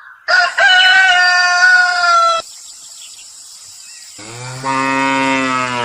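Cattle mooing: two long calls, the first higher-pitched and the second lower and deeper near the end.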